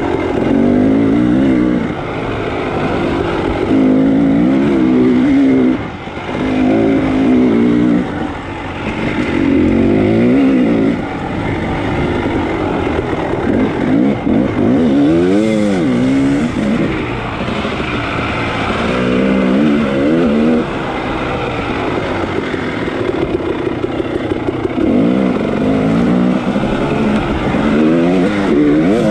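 Dirt bike engine ridden hard off-road, revving up and down again and again as the throttle is opened and closed and the gears change, with short dips where the throttle is shut.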